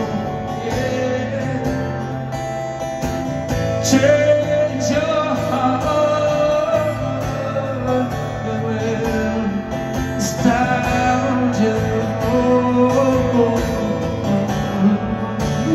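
Live concert music from a slow song, heard from within a large crowd, in a stretch between sung lines.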